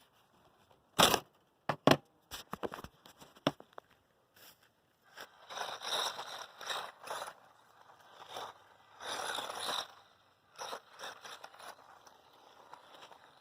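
Small RC truck (Losi Mini-T 2.0) on knobby tyres driving in bursts, its tyres crunching and scrabbling over the ground, with a few sharp knocks about a second in.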